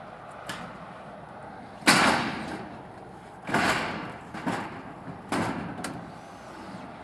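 Corrugated steel roofing panels clattering as they are handled and laid onto a metal roof. There is a loud bang about two seconds in, then several smaller knocks and rattles, each dying away quickly.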